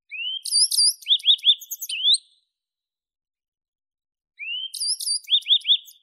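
Yellow-browed bunting singing two short song phrases about two seconds apart. Each opens with a rising slurred note, then a few high notes, then a quick run of three repeated notes.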